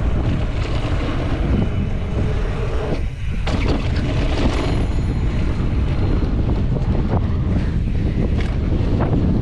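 Wind buffeting the microphone of a mountain biker's camera at speed on a dirt trail, over the rolling of knobby tyres on packed dirt and the rattle and knock of the bike over bumps. The rumble lets up briefly about three seconds in.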